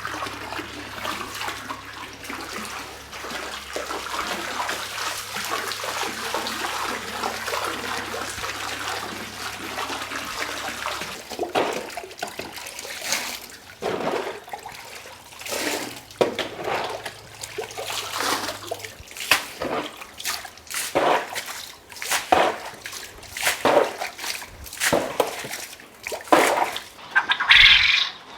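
Water running steadily, then from about eleven seconds in a series of separate, irregular splashes.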